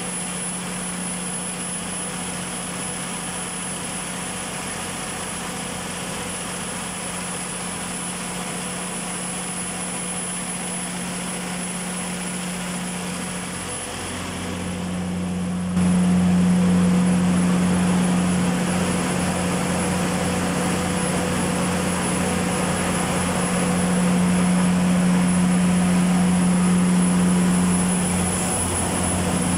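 Freshly overhauled Perkins 2200 series six-cylinder diesel generator set running steadily, a constant engine hum with a strong held tone. It grows abruptly louder about halfway through.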